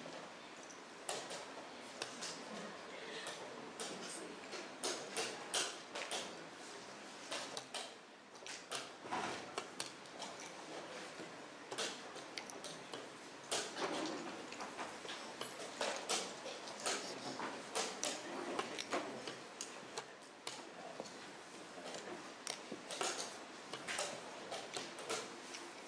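Wooden chess pieces set down quickly on the board and the chess clock's buttons pressed in turn, making an irregular run of sharp clicks and knocks. This is a blitz game in a time scramble, with only seconds left on the clock.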